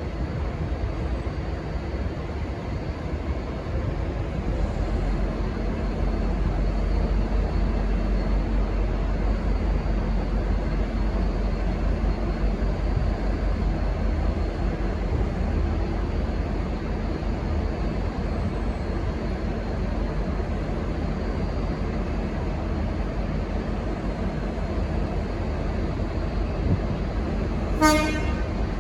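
Diesel-electric locomotive engine running with a steady low rumble that grows louder a few seconds in as the train pulls away, then one short blast of a Leslie RS5T locomotive horn near the end.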